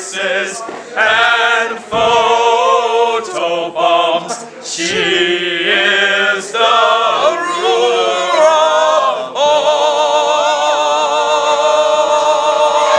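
A small group of teenage boys singing together in chorus, phrase by phrase. In the last few seconds they hold one long chord.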